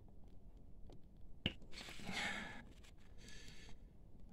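Quiet handling of plastic refillable ink cartridges: one sharp click about one and a half seconds in, with two soft hissing stretches after it.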